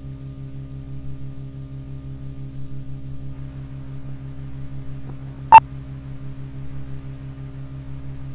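Steady low hum with a fast, even pulsing from an old film soundtrack running through its leader countdown. About five and a half seconds in comes a single short, loud, high beep: the 2-pop sync tone that marks the '2' of the countdown.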